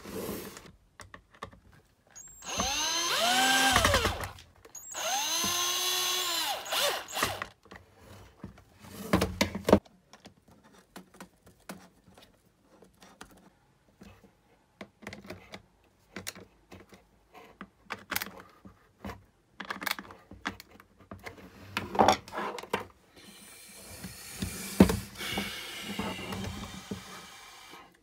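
Cordless drill-driver running twice for about two seconds each, its motor speeding up and winding down each time as it drives screws. Afterwards come scattered clicks and knocks of plastic parts being handled.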